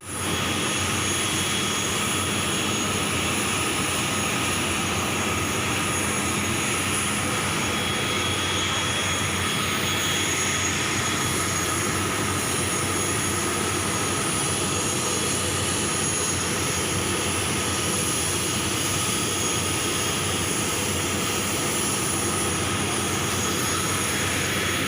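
Steady drone of an airliner's engines: an even rushing noise with a few faint, steady whining tones. It does not change throughout, starting and stopping abruptly.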